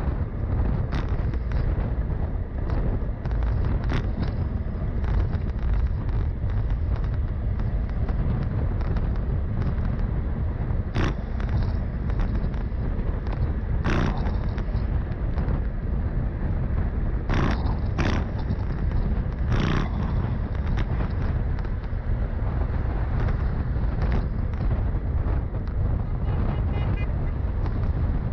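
Steady wind buffeting and rumbling on the microphone with road and traffic noise, broken by a few short sharp clicks or knocks.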